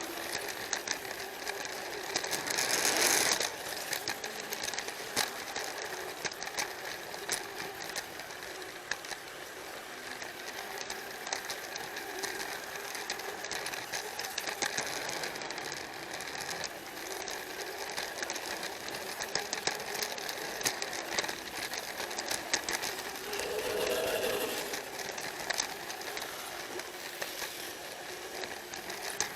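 Plarail toy train running on plastic track: the small battery motor and gearbox whir steadily while the wheels clatter continuously over the track joints, louder for a moment about three seconds in.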